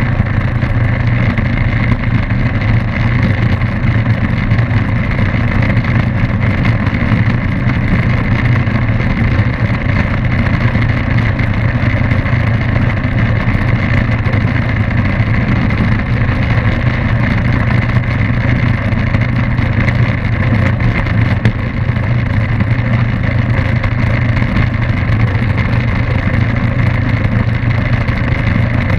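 Light aircraft's piston engine and propeller running steadily at constant power as the plane rolls along the ground, heard from outside the fuselage with a deep, even hum under a wash of air noise.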